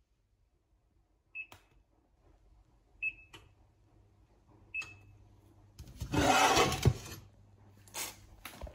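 Touch-control buttons on a glass-ceramic hob beeping three times, short high beeps a little under two seconds apart, as the settings are pressed. Then a louder scraping clatter lasting about a second, ending in a sharp clunk, and a shorter scrape near the end, as a pot is set on the glass top.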